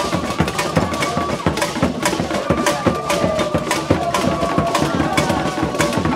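Music driven by drums and sharp percussion strikes keeping a steady, quick beat, over long held tones.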